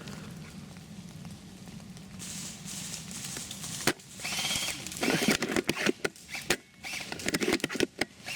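Close rustling and crackling of leaves and twigs, with irregular sharp snaps and clicks, loudest in the second half.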